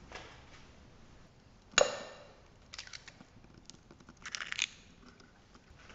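Eggs being cracked into a glass mixing bowl. A sharp knock with a brief ring comes nearly two seconds in, followed by shorter crackling and crunching of shell as the eggs are broken open.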